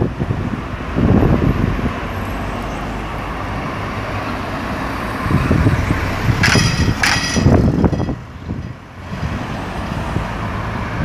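Road traffic: cars and minivans driving past along a city street, the engine and tyre noise swelling as each passes. Two brief high beeps sound about two-thirds of the way through.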